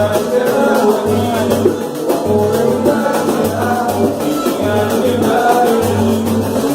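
Samba band performing live: singing over a steady percussion groove with a shaker and a low bass pulse beating regularly.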